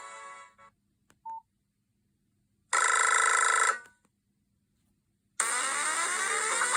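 Nokia 5220 XpressMusic mobile phone playing its preloaded ringtones through its small loudspeaker. One tone fades out, then comes a single short beep, then a one-second tone, and near the end a new ringtone starts with rising sweeps.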